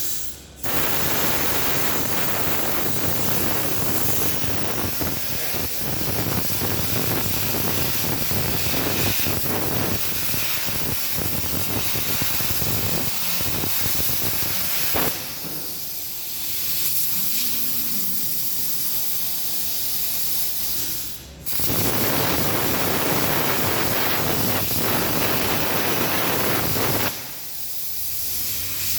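Plasma cutter on a SteelTailor Dragon III CNC table, hissing steadily as it cuts. It breaks off briefly just after the start, runs quieter for several seconds midway, cuts out sharply for a moment, then resumes before dropping off near the end.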